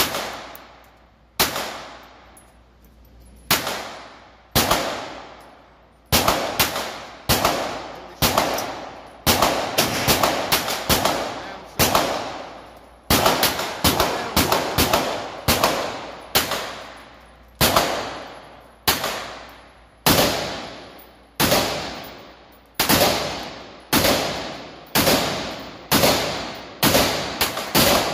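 Pistol shots fired one at a time in a long, uneven string, about one a second and sometimes two or three in quick succession. Each shot rings and dies away off the hard walls of an indoor range.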